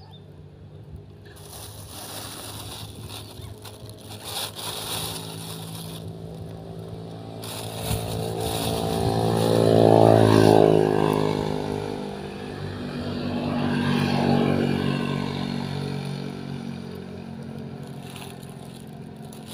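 Motor vehicles passing along a road. The engine note grows louder and then drops in pitch as the first goes by about halfway through, and a second vehicle passes a few seconds later.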